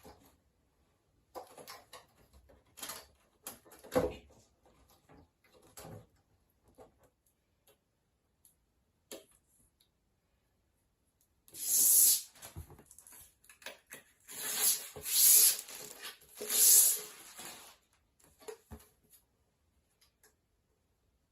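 Handwork sounds: light knocks and handling noises in the first few seconds, then, from about twelve seconds in, several short rasping, scraping strokes.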